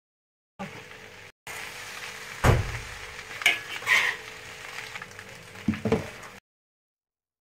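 Fried rice sizzling in a large wok while a metal spatula stirs it, scraping and knocking against the pan several times, the loudest knock about two and a half seconds in. The sound drops out at the start and again after about six seconds.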